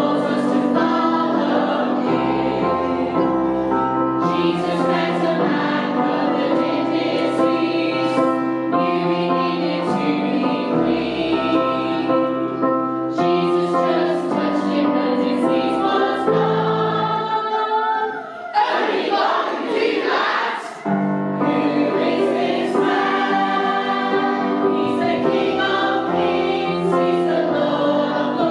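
Background music: an upbeat song sung by a group of voices over a bass line and a steady beat. About eighteen seconds in, the bass and beat drop out for a couple of seconds, leaving a sliding vocal line, and then the full song returns.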